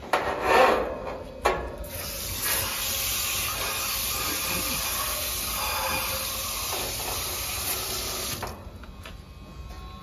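Garden hose pistol-grip spray nozzle jetting water into a clogged air-conditioner condenser coil to clean it: a steady hiss that starts about two seconds in and cuts off sharply near the end. Before it, a loud rush and a sharp knock.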